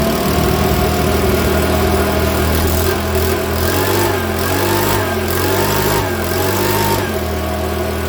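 Makita BHX2500 leaf blower's small four-stroke engine running steadily just after starting, its speed wavering slightly in the middle. The engine has just had its valve clearances set, and the owner still hears it spluttering a bit.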